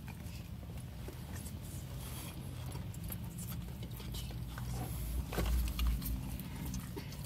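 A person biting into and chewing a chicken sandwich with crisp lettuce and bread: irregular wet, crackling mouth clicks over a steady low hum, with a louder low rumble about five and a half seconds in.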